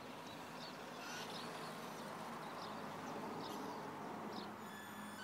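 Small birds chirping in short high calls about every second or so, over a steady outdoor background hiss.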